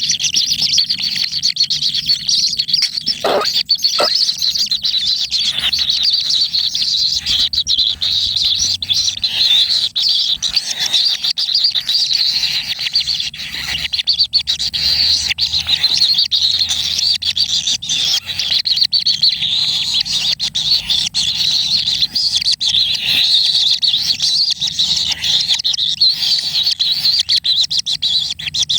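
Kingfisher nestlings chirping rapidly and continuously in a dense, high-pitched chorus, with a couple of short, sharper calls about three and four seconds in.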